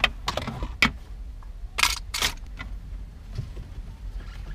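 Handling noise of a car stereo head unit being held and moved over the dashboard: a few sharp plastic clicks in the first second, then two brief rustling swishes about two seconds in, over a steady low rumble.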